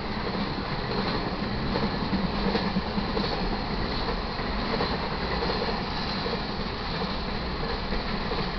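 Intermodal freight train cars carrying semi trailers rolling past at speed: a steady rumble of steel wheels on rail with clacking from the rail joints.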